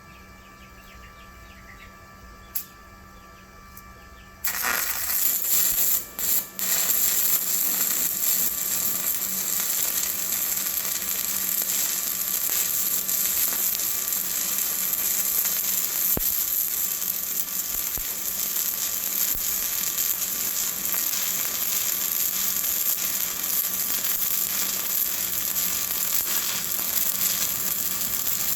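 A low steady hum with a single click, then about four seconds in a 7018 stick electrode strikes an arc: the dense, steady crackling sizzle of stick welding, cutting out twice briefly just after the strike before running on unbroken.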